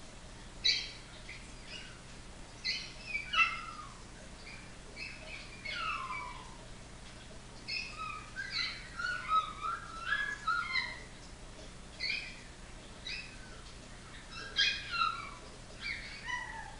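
Chihuahua puppies whining and yipping in a steady run of short, high-pitched cries, several of them sliding down in pitch.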